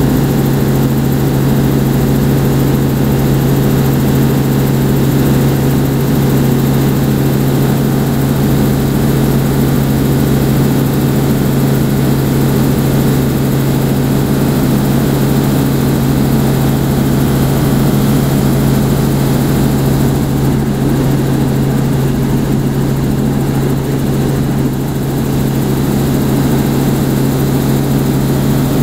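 Helicopter in flight, heard from inside the cabin: loud, steady rotor and engine noise with a strong low hum that holds unchanged throughout.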